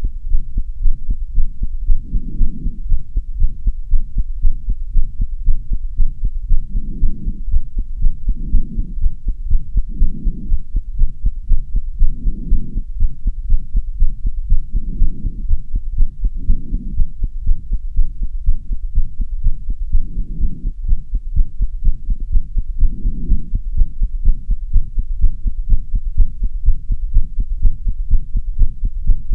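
A person's own heartbeat recorded on a phone, beating fast and steadily: the heart racing after half an hour of running up stairs. Soft low swells come and go every two seconds or so under the beats.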